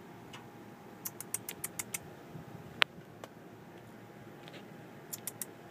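A person making quick kissy clicking sounds with the mouth to call a cat: a rapid run of about seven clicks, one sharper single click, then a shorter run of three or four.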